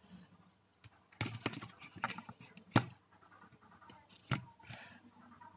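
Handling noise as a plastic spool of fishing line is put down: rustling and scraping with a few sharp clicks, the loudest near the middle.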